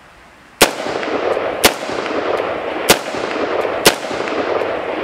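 Four shots from a 5.56 AR-15 rifle fired semi-automatically at about one-second intervals, with a steady rush of noise hanging between the shots.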